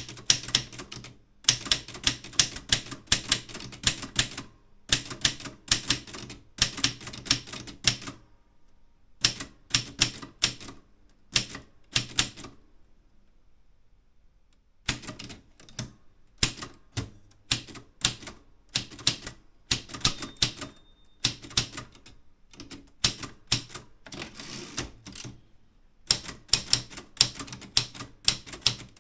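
Typewriter being typed on, with fast runs of key strikes broken by short pauses between words and lines. A brief ring sounds about two-thirds of the way through.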